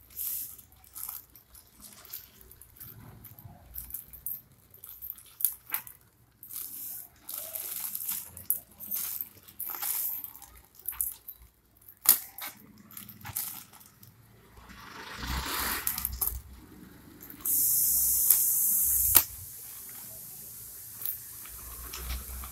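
Plastic courier mailer and brown packing tape crinkling and tearing as hands pull a parcel open: irregular crackles and rustles, with a louder steady hiss lasting about two seconds near the end.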